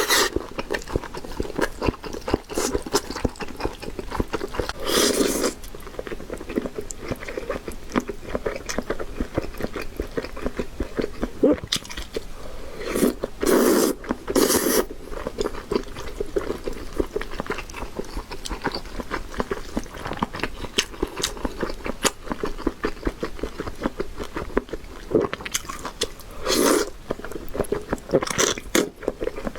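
Close-miked eating of a grilled pure-meat sausage: steady wet chewing and biting, with a few louder, noisier moments scattered through.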